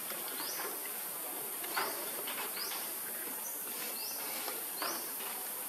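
Steady high-pitched insect chorus, with a short rising chirp repeating about once a second and a couple of brief clicks.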